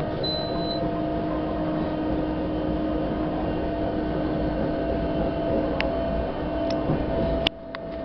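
Narrow-gauge electric railcar running, heard from inside the driver's cab: a steady electric hum over the rumble of wheels on the track. A brief high squeak comes just after the start, and near the end a sharp click is followed by a drop in loudness.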